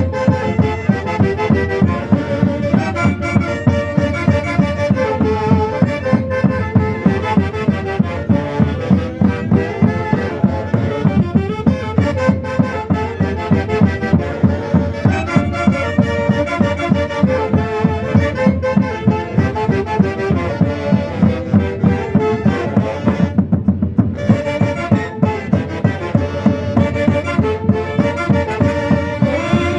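A Peruvian folk band playing: wind instruments carry a melody over a steady drumbeat of about two beats a second.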